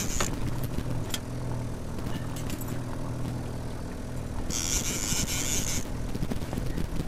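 Boat's outboard motor running steadily at trolling speed over wind and water noise, with a brief click about a second in and a burst of high hissing lasting about a second, some four and a half seconds in.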